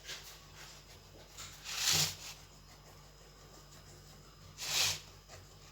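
A knife sawing through a baked sponge cake to split it into two layers: two short rasping strokes, about three seconds apart.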